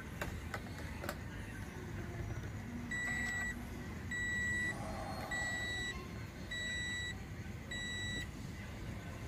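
Toyota Yaris dashboard warning chime beeping five times, one high, even beep about every second, starting about three seconds in.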